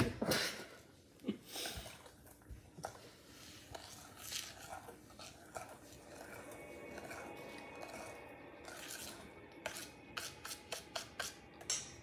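Utensil scraping and stirring against a stainless steel mixing bowl, with scattered light clicks and knocks that come more often in the last couple of seconds.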